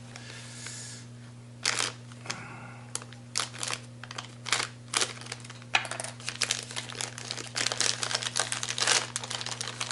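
Plastic parts bag crinkling in many short, irregular handlings as used gearbox parts are put back into it.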